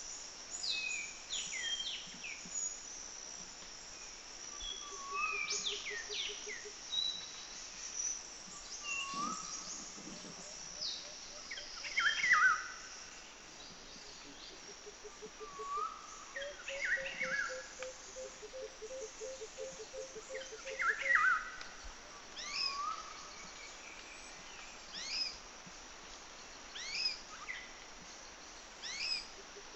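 Several birds chirping and calling, with quick high chirps and sweeping whistles throughout. A lower, evenly pulsed trill of about five notes a second comes in a few times.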